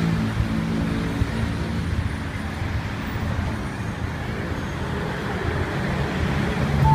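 Steady road traffic noise from passing vehicles, with the low hum of a heavy engine that is strongest in the first couple of seconds and again near the end.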